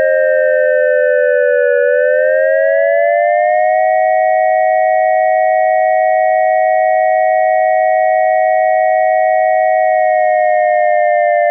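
ASC digital electronic siren controller's synthesized dual-tone Attack signal: two close pure tones sounding together that dip slightly, rise over about two seconds, hold steady for about six seconds, then start a slow fall near the end.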